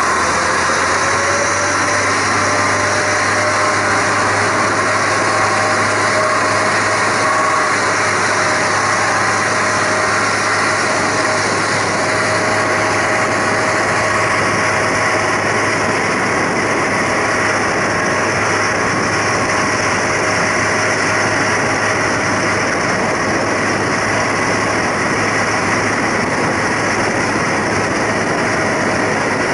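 Zillertalbahn diesel railcar running steadily: a constant engine hum under steady running noise. A whine rises slightly in pitch over the first second or two, then holds.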